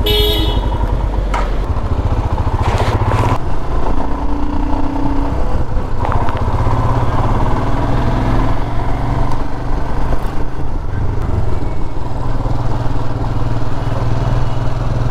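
Royal Enfield Himalayan's single-cylinder engine running under way, its note shifting a few times with throttle and gear changes. A brief horn beep sounds right at the start.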